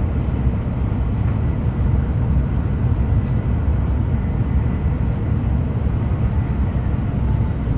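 Steady low rumble of a Shinkansen Nozomi bullet train running at speed, heard from inside the passenger cabin.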